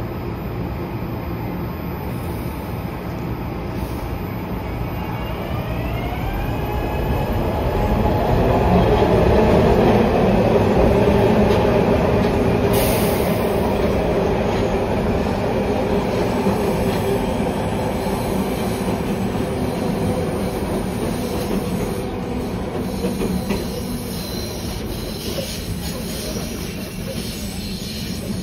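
Market–Frankford Line train running through the station with rumbling wheels and rail noise. About six seconds in, a motor whine rises in pitch as the train gathers speed, and the sound is loudest a few seconds later before easing off.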